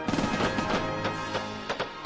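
Simulated fireworks sound effects over background music: a loud burst right at the start, then crackling, then several separate sharp pops near the end.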